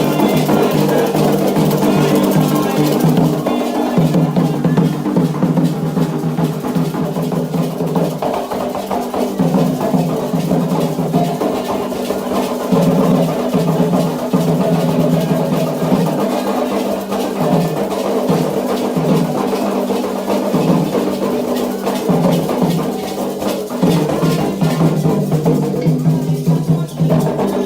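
Candomblé ritual drumming on atabaque hand drums, a steady, dense percussion rhythm.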